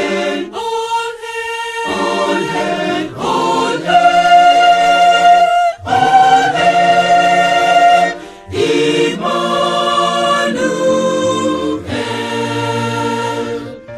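Mixed choir of women's and men's voices singing a hymn in several-part harmony, in sustained phrases broken by two short breaths.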